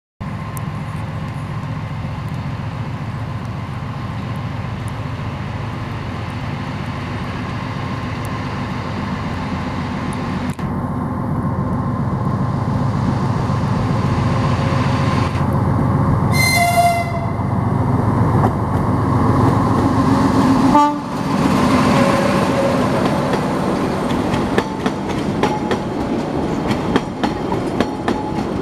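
TU7A narrow-gauge diesel locomotive's engine running steadily as it approaches, growing louder, with a short horn blast a little past halfway. As it passes, the passenger carriages roll by with repeated wheel clicks over the rail joints.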